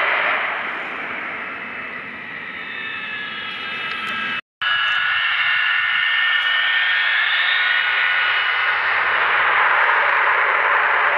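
Avro Vulcan's Rolls-Royce Olympus turbojets running on the ground: a loud rush with several high whining tones that slide up and down in pitch. The sound eases a little at first, breaks off for a split second about four and a half seconds in, then returns with the whine rising and falling.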